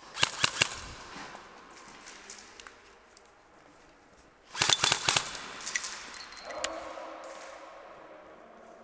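Airsoft electric rifle firing two short bursts of rapid shots, one just after the start and one about four and a half seconds in.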